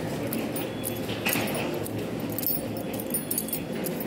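Handling noise from a hand-held phone: irregular clicks and rustles close to the microphone, over a steady low hum.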